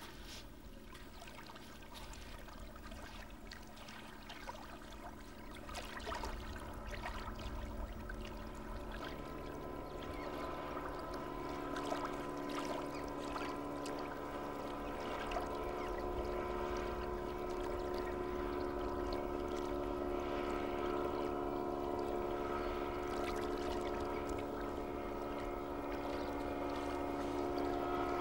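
Small waves lapping and trickling at a shoreline. A steady motor drone comes in about nine seconds in and grows louder toward the end.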